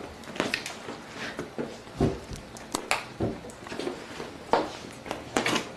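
Cats' paws scampering and landing on the floor as they chase a laser dot: scattered light taps, with heavier thumps about two and three seconds in.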